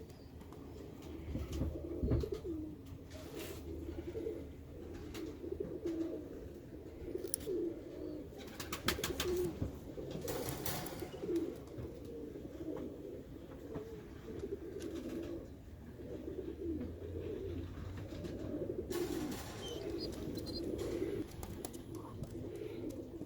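Birmingham Roller pigeons cooing continuously, a steady low warbling murmur of several birds, with a few brief rustles and clatters.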